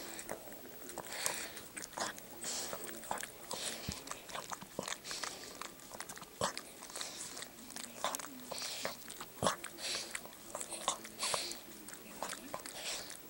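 Yorkshire Terrier mother licking and nibbling her newborn puppy: a busy run of irregular wet smacks, slurps and small clicks of tongue and teeth.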